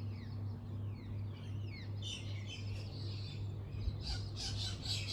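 Small birds chirping and calling in quick, falling notes, busier from about two seconds in. Under them is the steady low hum of an AC ceiling fan motor running at high speed.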